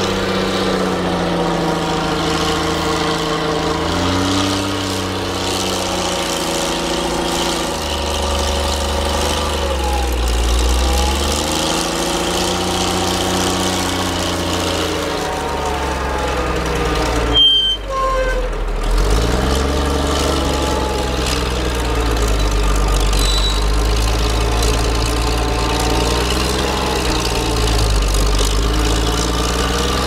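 Heavy engine of a large wheel loader working in snow, its pitch rising and falling every few seconds as it is revved up under load and eased off. A brief sudden break in the sound about halfway through.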